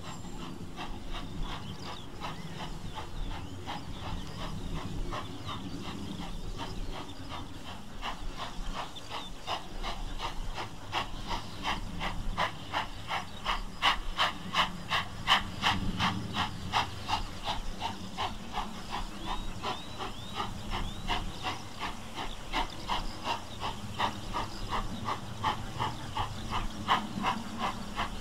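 LNER B1 class 4-6-0 steam locomotive No. 61341 working its train up the grade: an even rhythm of exhaust beats over a low rumble. It grows louder to a peak about halfway through and keeps on beating after that.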